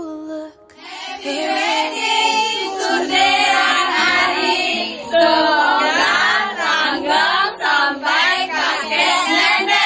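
A group of women's voices singing together, their pitches sweeping up and down in loose unison.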